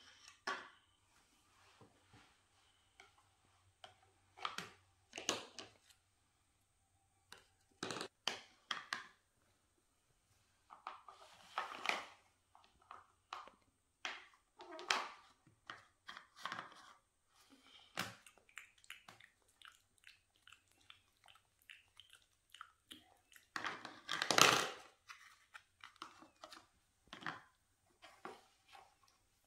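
Plastic toy food and toy dishes being handled on a tabletop: scattered light taps and clicks, with a few short scraping, tearing noises, the loudest about two-thirds of the way through.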